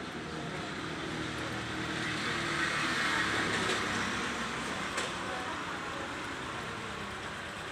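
Portable hand-sculpted tabletop water fountain running: water trickling and splashing down its tiered spouts into the basin, a steady splash that grows a little louder for a couple of seconds midway.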